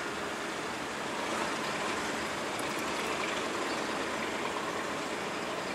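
Diesel locomotive hauling a work train, a steady, even rumble of engine and wheels on rails that swells slightly about a second and a half in.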